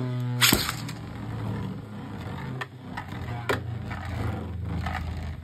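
Two Beyblade Burst spinning tops whirring steadily in a plastic stadium. About half a second in there is a rattling whir and a sharp clack as a top is launched in, and a few light clicks follow.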